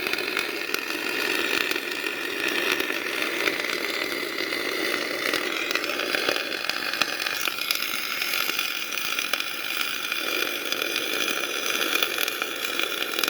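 Semi-automatic MIG welder arc burning steadily, a continuous dense crackle.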